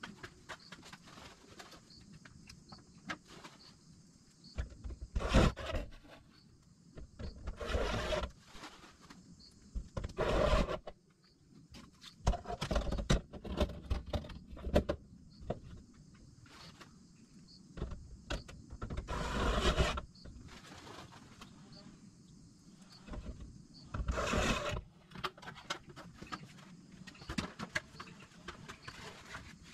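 Gutter-guard installation on an asphalt shingle roof: irregular scraping and rustling, each burst a second or so long, with scattered clicks and knocks between.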